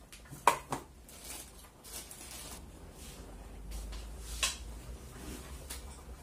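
A few sharp clicks and knocks of tableware being handled: a loud one about half a second in, another about four and a half seconds in, over a low steady hum.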